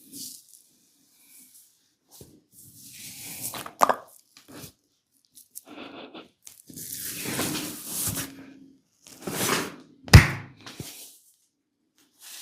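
Massage sounds: hands rubbing and brushing over skin in repeated swells, with a sharp, loud snap about ten seconds in and a smaller one near four seconds.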